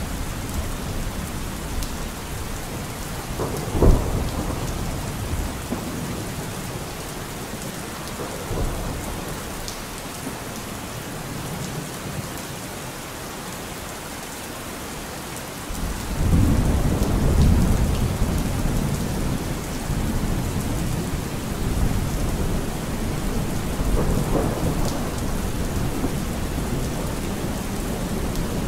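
Steady rain falling through a thunderstorm. A sharp thunderclap comes about four seconds in, a long low rumble of thunder rolls in a little past the middle, and a smaller rumble follows near the end.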